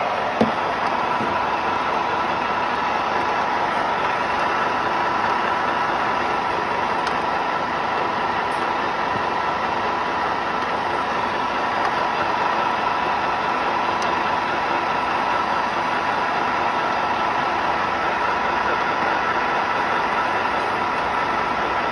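Small 3 kW electric pellet mill running under load, pressing pine sawdust into pellets: a steady mechanical running sound with a constant high hum. There is a single short knock about half a second in.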